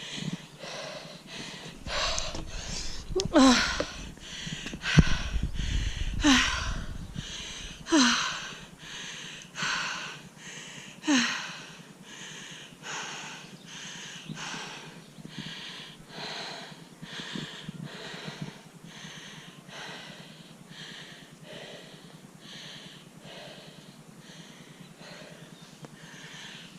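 A person breathing hard after a steep uphill climb, panting in a steady rhythm of a little over one breath a second. In the first dozen seconds a few breaths come out as voiced, falling gasps, and the breathing grows softer towards the end.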